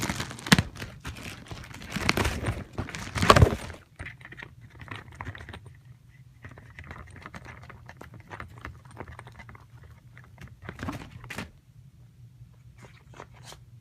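Packaging being handled and torn open to unwrap a BMX seat: crinkling, rustling and tearing, dense and loud for the first few seconds. Then quieter scattered rustles over a faint steady hum, with one louder crinkle near the end.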